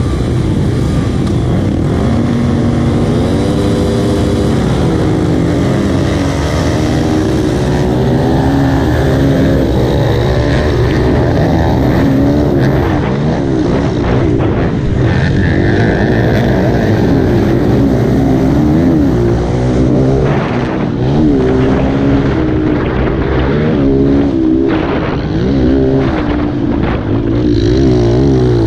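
Pit bike engines racing, heard from a helmet camera on one of the bikes, the engine pitch rising and falling over and over as the riders throttle up and back off through the turns and jumps.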